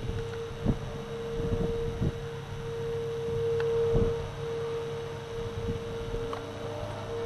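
Outdoor warning sirens sounding the steady alert tone during a test: one siren holds a single steady pitch, swelling to its loudest about four seconds in, with a few short thumps over it. Near the end a second, fainter siren starts winding up.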